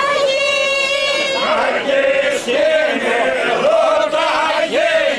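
Unaccompanied group singing of a traditional Greek Easter dance song, sung by the dancers themselves in unison. It opens on one long held note, and about a second and a half in more voices join in a fuller, wavering line.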